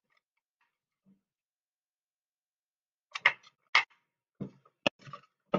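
Quiet for about three seconds, then a quick run of several sharp plastic clicks and knocks as the top half of a smoke and heat alarm is handled and turned.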